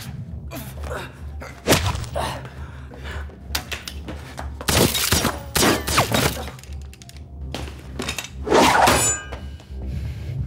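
Movie fight sound effects: a rapid run of heavy blows, thuds and crashes, with glass breaking, and two longer loud crashes about five and nine seconds in.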